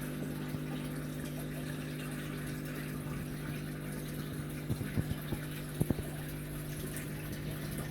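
Steady low mechanical hum, like a pump or household appliance running, with a few faint light clicks about five to six seconds in.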